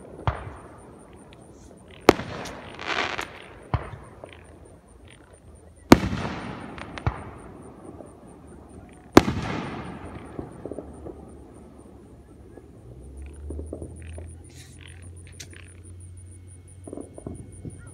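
Aerial fireworks shells bursting: sharp bangs about 2, 6 and 9 seconds in, each followed by a long echoing rumble, with smaller pops between them, then only a few faint pops after about ten seconds.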